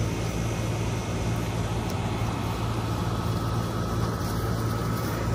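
Steady low mechanical hum over an even background hiss, unchanging throughout.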